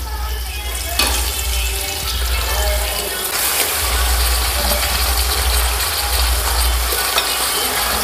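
Raw mutton pieces dropped into hot oil and browned onions in a large cooking pot, starting to sizzle suddenly about a second in and then frying steadily.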